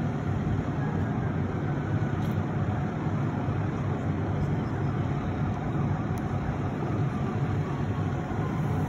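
Fire truck diesel engine running with a steady low rumble, mixed with street traffic noise.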